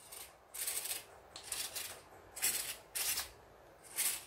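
A 1/16 scale WPL Toyota Hilux RC truck's small electric motors whirring in about five short bursts, each under half a second long.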